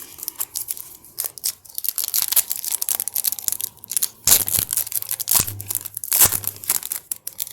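Foil wrapper of a trading-card pack crinkling and tearing as it is opened and handled, a dense run of crackles that is loudest in the second half.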